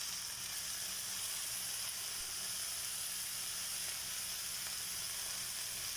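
Freshly added anchovies and onion masala sizzling steadily in oil in a nonstick pan: an even, high hiss.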